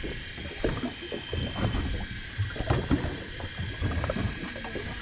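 Sea water lapping and slapping against an inflatable boat's side, with irregular low knocks and bumps.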